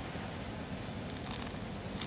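Steady outdoor background noise with a low rumble and hiss, and a faint brief rustle about two-thirds of the way through.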